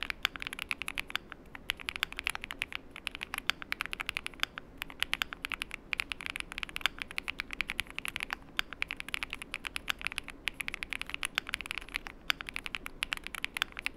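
CIDOO V75 PLUS gasket-mount mechanical keyboard being typed on quickly: a dense, fast run of keystroke clicks broken by a few short pauses.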